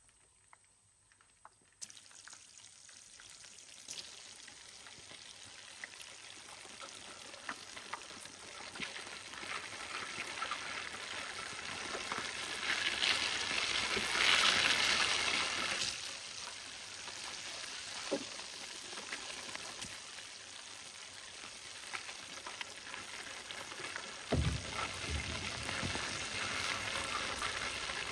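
Food frying in a hot pan: a sizzle that starts suddenly about two seconds in, grows louder toward the middle and then holds steady. A low thump comes near the end.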